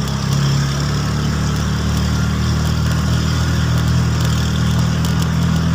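A vehicle engine running steadily at an even speed, a constant low hum with no revving.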